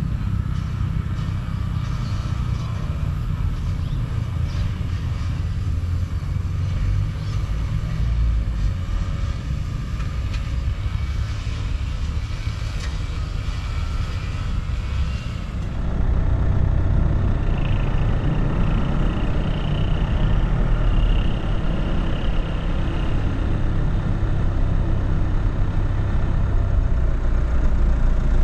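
A steady low rumble that changes abruptly a little past halfway to the louder, fuller sound of a car engine running, heard from the car.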